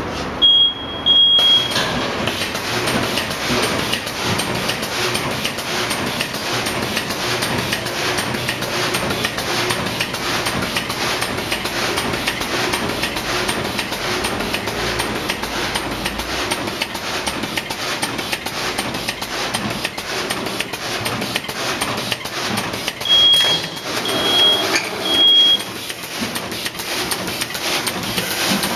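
Plastic bag making machine with double-decker sealing and cutting, running steadily with a dense, rapid clatter of short strokes. A high electronic beep sounds just after the start, and three short beeps near the end.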